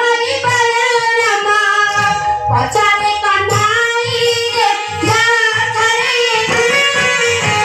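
A high voice singing an ornamented devotional melody over music with a steady drum beat of about two strokes a second.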